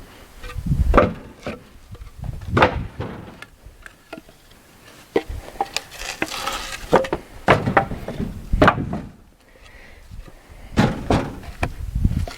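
Pieces of cut wood knocking and thumping as they are handled and dropped, in irregular hits a second or so apart, with a brief scrape near the middle.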